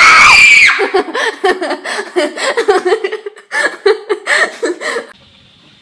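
A short high-pitched scream, then a person laughing in quick bursts for about four seconds, stopping shortly before the end.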